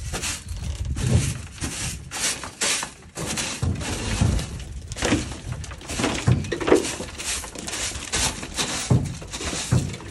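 A broom scraping and sweeping along the wooden shelves of a pigeon loft, knocking off built-up dried droppings and debris. Repeated rough strokes with knocks, several a few seconds apart.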